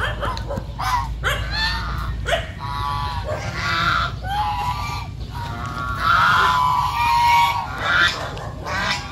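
A flock of white domestic geese honking loudly and repeatedly, many calls overlapping in a noisy chorus.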